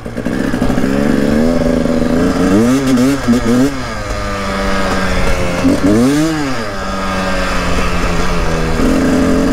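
Motorcycle engine revving in a series of quick up-and-down blips, then one longer rise and fall of pitch about six seconds in.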